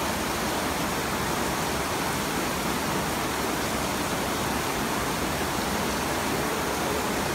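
Artificial rain from the Rain Room installation falling steadily onto a hard floor: an even hiss of pouring water with no breaks.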